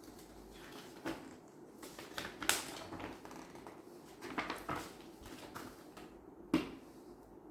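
Handling noises from unpacking a PC case: a few sharp clicks and knocks with light rustling in between, the loudest about two and a half seconds in and again near the end.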